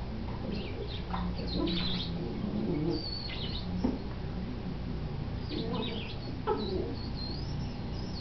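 Yellow rubber squeaky ball squeaking in several short high-pitched bursts as a miniature dachshund bites and chews it.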